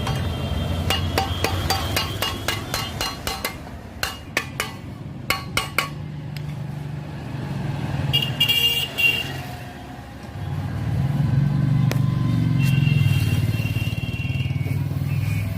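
Gas welding torch running with a low steady roar, with a run of sharp clicks over the first six seconds.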